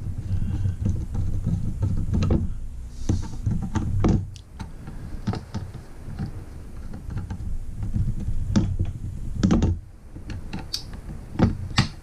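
Phillips screws being driven back into the battery cover of a PEX ratcheting crimp tool with a screwdriver: handling rumble with scattered light clicks and knocks.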